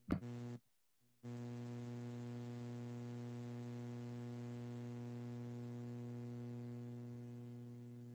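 Steady electrical hum with a stack of evenly spaced overtones. A short click sounds right at the start, the hum cuts out for about half a second, then resumes and tapers slightly near the end.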